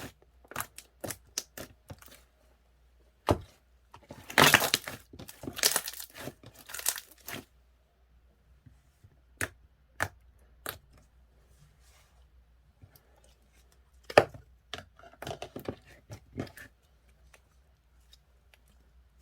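Close-up crinkling and tearing of wrapping, in short bursts with sharp cracks between and quiet gaps; the busiest stretches come about four to seven seconds in and again near the three-quarter mark.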